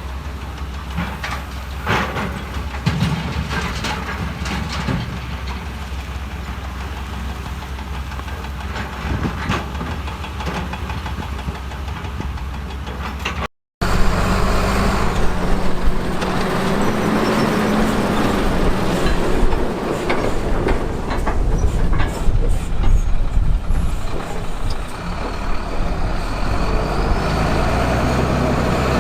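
Diesel engines of heavy earthmoving machines running, with scattered knocks and clanks of stone in the first half. The sound drops out briefly about halfway through, then comes back louder.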